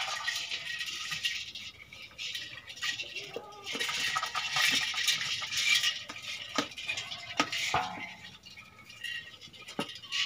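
A hand scraping and splashing in an aluminium pot that holds live crabs in a little water, with sharp knocks against the metal near the end.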